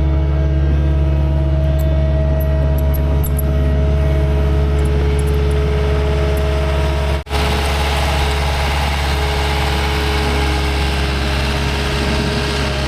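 Skid-steer loader's diesel engine running steadily at high revs, with a brief drop-out about seven seconds in.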